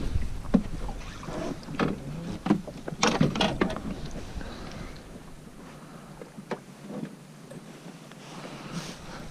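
Irregular knocks, clicks and clatter of fishing gear being handled aboard a small boat, densest in the first few seconds, over a low wind rumble that drops away about halfway through.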